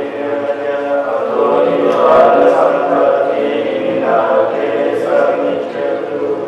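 Theravada Buddhist monks chanting together, several male voices in a sustained, steady recitation.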